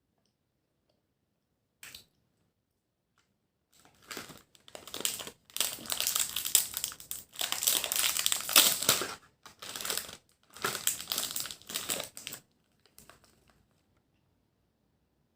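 Plastic food packaging crinkling and rustling as it is handled, in several bursts after a single short click.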